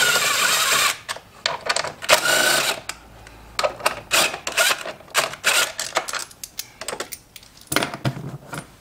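A cordless drill-driver running in two short bursts, driving fasteners: one that stops about a second in and a shorter one about two seconds in. After that, a string of light clicks and knocks from handling parts.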